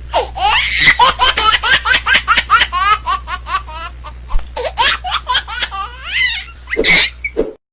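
A person laughing hard in a long run of quick, high-pitched bursts, several a second, over a steady low hum; laugh and hum cut off together near the end.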